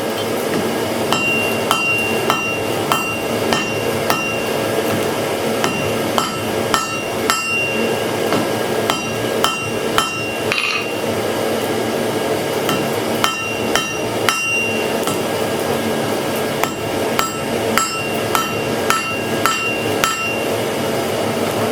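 Hand hammer striking steel on an anvil in irregular blows, about one or two a second, each with a short metallic ring, over a steady rushing noise.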